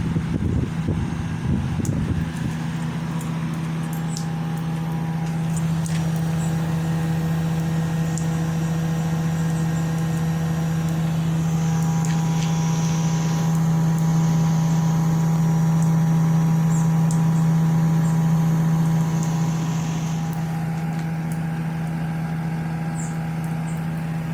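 Midea inverter ductless air conditioner running, a steady machine hum with a strong low tone and fainter higher tones above it. The hum grows a little louder about halfway through, then eases back near the end.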